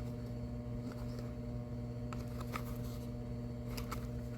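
Steady low electrical hum with a few faint clicks and taps as K-cup packs are handled.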